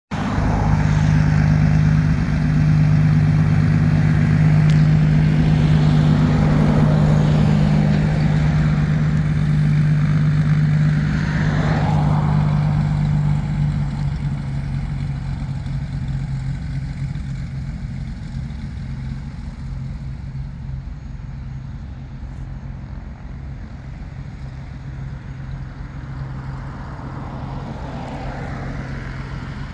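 The twin piston engines and propellers of a Cessna 402B taxiing, a steady low drone. It grows gradually quieter from about halfway through.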